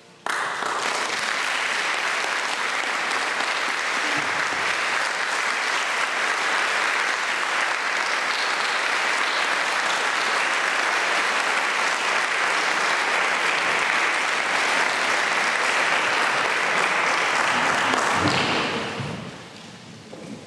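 Audience applauding, breaking out suddenly as the last note of a song dies away, holding steady and fading out near the end.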